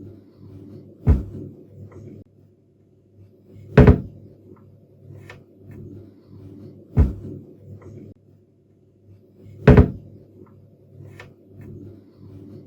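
Cabinet door shut four times, about every three seconds, each a sharp clack, with smaller clicks and knocks of the door between the shuts. A low steady hum runs underneath.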